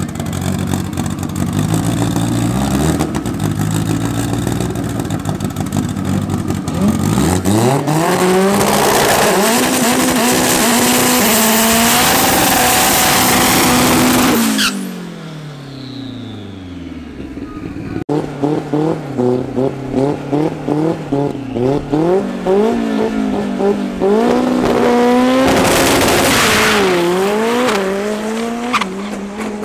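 Nissan CA18 four-cylinder in a Datsun 1200 bakkie drag car: the engine revs up through a burnout with the tyres squealing, then its note drops off sharply. It then revs in short bursts on the start line, and about three-quarters through launches at full throttle, the pitch dipping once at a gear change before climbing again.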